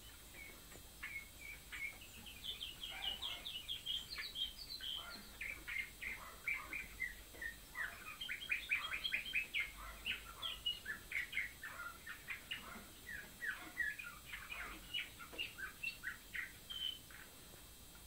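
Domestic canary singing: a long string of quick, high chirps and fast trills, beginning about a second in and stopping near the end.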